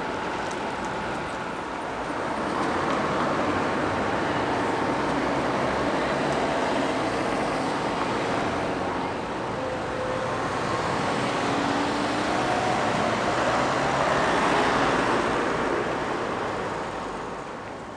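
Road traffic noise: vehicles passing on a town street, the sound swelling twice as they go by.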